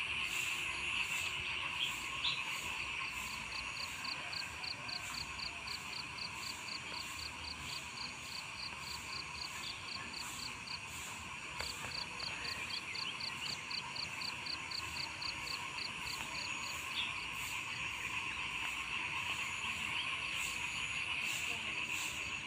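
Frogs and insects calling together: a steady high chorus, with a run of short chirps about four a second that pauses briefly near the middle.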